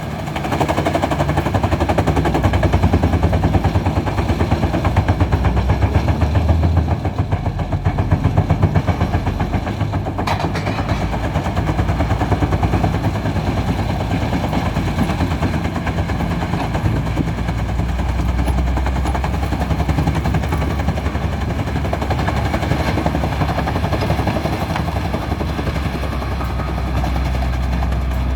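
Wood chipper chipping logs: a dense, rapid run of cracks and knocks over the steady low drone of a heavy engine.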